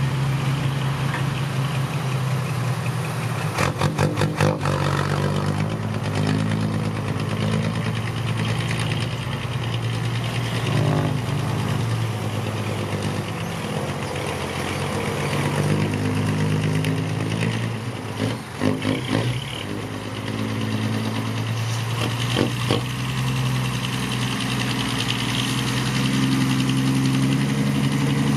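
Six-wheel dump truck's diesel engine running steadily, with short clusters of clattering knocks about four seconds in and twice in the second half.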